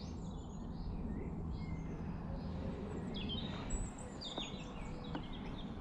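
Small garden birds chirping and singing in short high notes, busier from about halfway through, over a steady low outdoor background hum.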